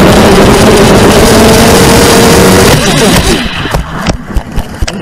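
Onboard sound of a 250-size FPV racing quadcopter: its electric motors and propellers whine steadily under a loud rush of air. About three seconds in, the motor pitch falls away and the sound drops, followed by a run of sharp knocks as the quad crashes and tumbles across the turf.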